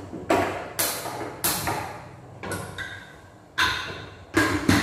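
Metal clanks and clicks of a pressure cooker's lid and pot being handled and closed on the stove: about seven sharp knocks, each ringing briefly.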